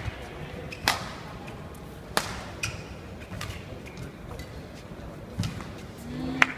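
Badminton rally: rackets strike the shuttlecock back and forth, a sharp crack about every second, with dull thuds of players' footwork on the court between hits.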